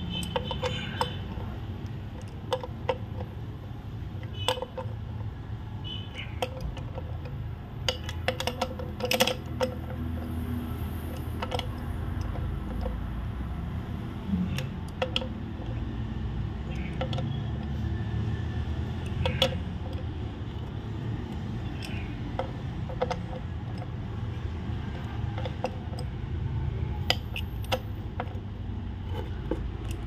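Socket and extension bar clinking against a CVT transmission case as its underside bolts are tightened by hand: scattered sharp metal clicks and taps over a low steady background hum.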